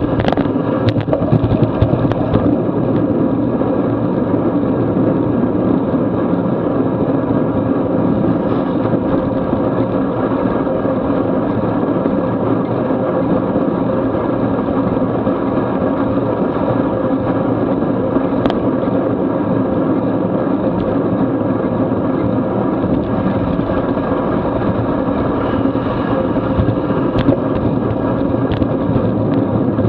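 Steady rush of wind on the microphone and tyre noise on wet pavement from a bicycle riding at about 20–25 mph, with a few sharp clicks around the start, about 18 seconds in, and near the end.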